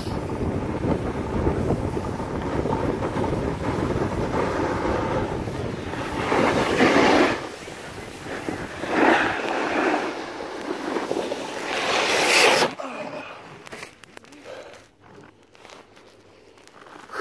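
Wind rushing over the microphone while skiing downhill, then three loud swishes of skis scraping across packed snow in turns, about a second each. After that it goes much quieter, with a few light clicks.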